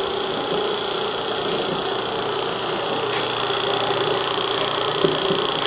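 Belt-driven meat grinder running: a 1725 RPM electric motor turning a two-stage V-belt and pulley reduction down to about 64 RPM at the grinder, a steady mechanical hum.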